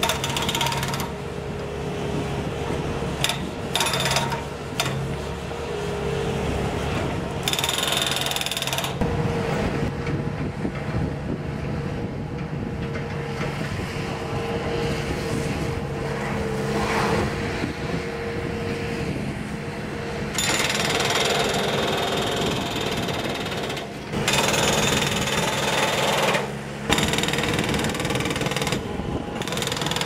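Bobcat S300 Turbo skid steer's turbo diesel engine running while its hydraulic breaker attachment hammers concrete in rapid, continuous blows. The hammering comes in about nine seconds in.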